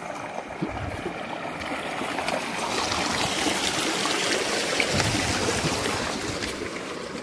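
Shallow stream flowing and trickling over rocks, a steady rush of water that swells louder midway and eases off toward the end.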